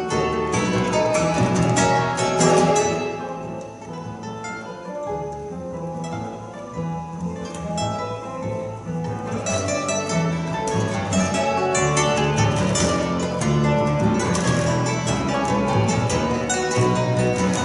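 Two classical guitars and a double bass playing an instrumental piece live, with many plucked notes over a steady bass line. The music drops to a softer, sparser passage about three seconds in, then builds back to full ensemble after about nine seconds.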